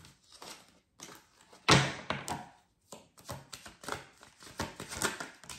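Oracle cards being handled and shuffled: a run of quick, irregular clicks and taps, with one louder knock about one and a half seconds in.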